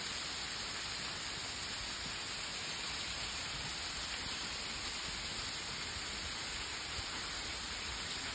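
Steady rushing hiss of flowing canal water, even and unbroken.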